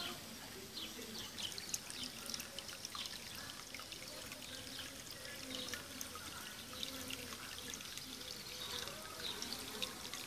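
Water from a small aquarium-pump fountain spilling out of a wooden spout into a planter pond: a steady trickle with many small splashes.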